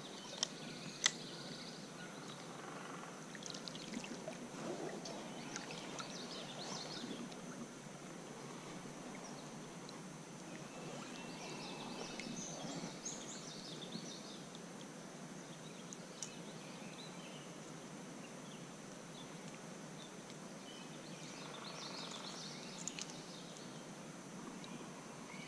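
Faint steady rush and ripple of a small creek's flowing water, with a few light clicks and scattered bird chirps.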